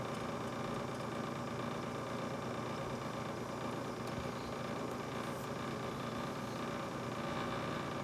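Brand-new GE refrigerator running with a steady mechanical hum, several constant tones over an even whirr.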